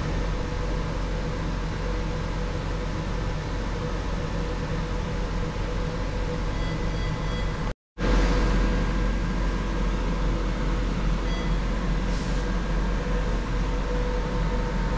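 Steady air-conditioning hum and hiss of an operating theatre, with a deep low hum under it. The sound cuts out for a split second about eight seconds in.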